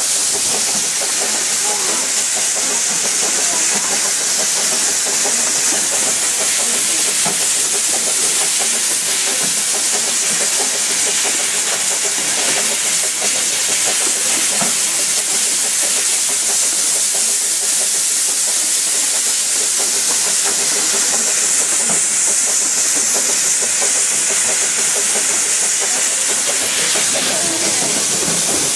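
Narrow-gauge steam train hauled by the 1889 Darjeeling Himalayan Railway locomotive No. 19 running, heard from an open-sided carriage: a loud, steady hiss with light rattling.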